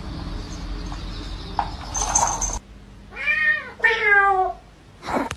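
Two meows about a second apart, each rising and then falling in pitch. A short click follows near the end.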